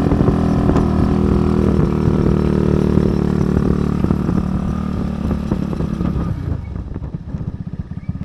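Motorcycle engine running steadily under load up a steep climb, then easing off about six seconds in, dropping to a slower, quieter pulsing beat as the bike slows.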